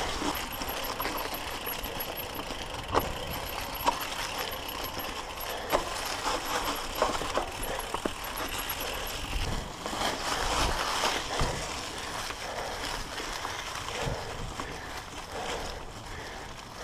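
Mountain bike rolling along a trail deep in dry fallen leaves: a steady rush of tyres through the leaves, with several sharp rattles and knocks from the bike over bumps.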